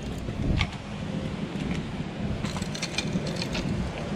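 Low rumbling handling and wind noise on the microphone, with light clicks and rattles from fishing rods and gear being carried.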